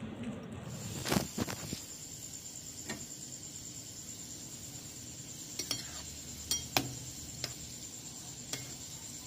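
Mini gulab jamun balls deep-frying in oil: a steady sizzle with a scattering of sharp metallic clinks against the pan, the loudest about a second in and about two-thirds of the way through.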